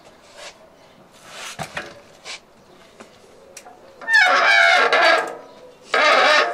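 Mountain bike disc brake with Nukeproof pads squealing loudly as the rolling bike is braked: two long, wavering squeals, the first starting about four seconds in and falling in pitch, the second near the end. Light clicks and knocks from the bike come before them.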